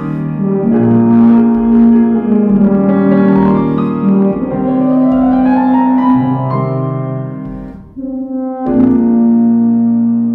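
Tuba playing sustained low notes with grand piano accompaniment, a rising run about halfway through. Both break off briefly about eight seconds in before the tuba comes back in.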